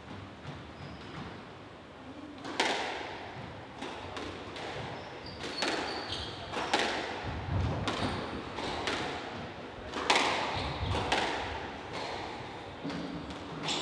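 Squash rally: the ball is struck by rackets and smacks off the court walls, about one sharp hit a second starting about two and a half seconds in. Each hit rings on in the court's echo.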